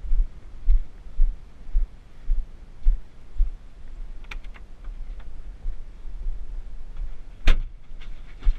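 Footsteps on a farmyard as low, regular thuds about two a second, then clicks of a Fendt tractor's cab door latch being opened about four seconds in. About seven and a half seconds in comes a loud, sharp knock as the cab is boarded, and a smaller knock just before the end.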